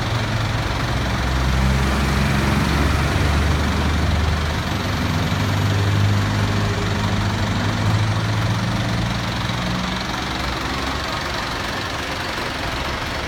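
A vehicle engine running steadily at idle, its low hum shifting slightly in pitch and easing a little in the last few seconds.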